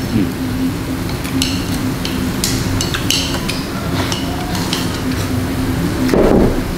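Sliced beef sizzling on a tabletop grill pan, with a steady low hum under it and a few short clicks of chopsticks and bowls.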